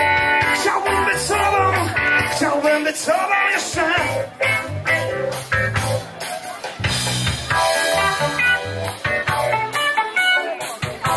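Loud music with a steady drum beat, guitar and a pitched melody line.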